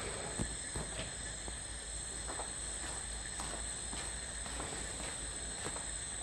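Crickets chirping steadily as night ambience, with a few faint footsteps as a man walks closer.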